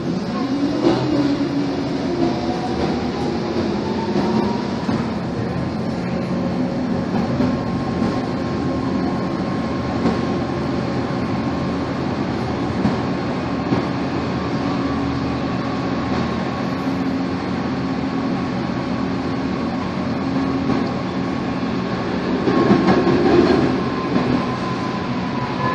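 Tatra T3 tram running, heard inside the passenger car: a steady hum and whine from the traction motors and gears over the rumble and rattle of the car on the rails. A whine rises in pitch over the first few seconds as the tram picks up speed, and the rumbling and clatter grow louder for a couple of seconds near the end.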